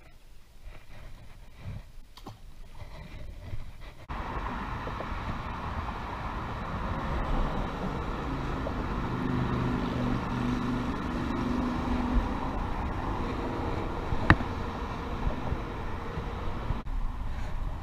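Steady road-traffic rumble from vehicles crossing a bridge overhead, with one engine's hum standing out as it passes in the middle. It sets in suddenly after a quiet opening, and there is one sharp click near the end.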